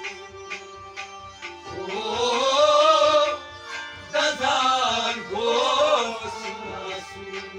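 Live folk music: a harmonium holding steady chords under regular drum strokes, with two long, wavering melodic phrases, sung or bowed, about two seconds in and again just past the middle.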